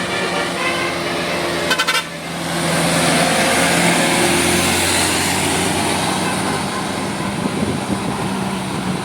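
A tour bus's musical telolet horn sounds for about the first two seconds and ends in a quick stutter. The bus then passes close by in a loud, steady rush of engine and road noise.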